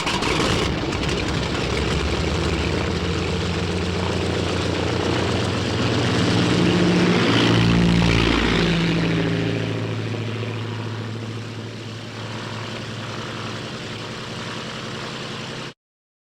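Animated-series car engine sound effect: a steady engine drone that swells to its loudest about eight seconds in, shifting in pitch as it passes, then fades and cuts off abruptly near the end.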